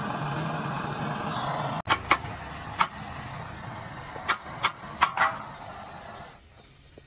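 Gas torch flame hissing steadily as it heats the soldered seam of a truck radiator's header tank. Then, after a break, about seven sharp metal clanks as the loosened tank is knocked free of the core and set down.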